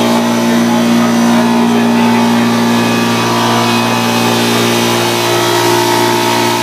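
3D-printed model turbofan jet engine spun by compressed air, running steadily: a constant multi-tone whine from the spinning fan and compressor stages over a rush of air.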